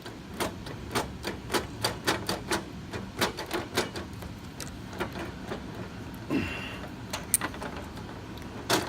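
Tubular lock impressioning tool clicking metallically in a 7-pin tubular lock as it is inserted and rotated, its needles taking up the pin depths to form a key. The clicks come quickly at first, two to three a second, then more sparsely, with a short scrape about six seconds in.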